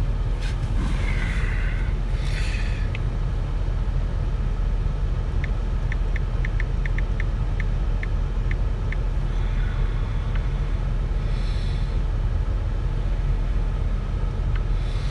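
Steady low rumble of a Ford F350 pickup idling, heard inside the cab. A quick run of about a dozen light clicks in the middle is phone keyboard taps as a login password is typed.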